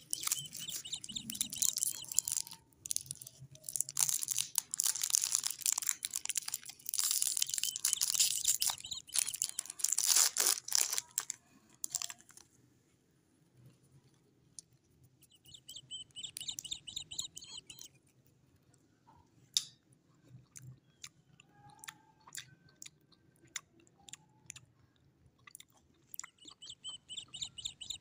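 Clear cellophane wrapper crinkling and tearing as it is peeled off a swirl lollipop: a long run of loud, dense crackling for about twelve seconds, then quieter scattered taps and rustles with two shorter bursts of crinkling, one in the middle and one near the end.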